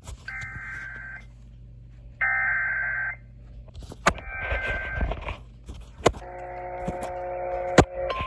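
Emergency Alert System SAME header: three one-second bursts of screeching two-tone digital data, about a second apart, with sharp clicks. Then comes a chord of steady tones lasting about two seconds. Just before the end a single steady attention tone starts.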